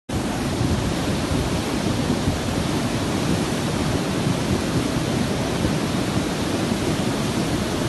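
Steady rushing noise of fast-flowing floodwater, heavy and rumbling with no breaks.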